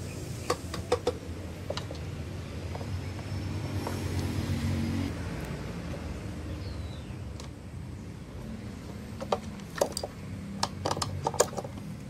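Sharp clicks and knocks of plastic washing-machine drain-valve parts being handled and fitted into place, coming in a few strikes near the start and a quicker cluster from about nine seconds in. Under them runs a steady low rumble that swells for a second or two around four seconds in.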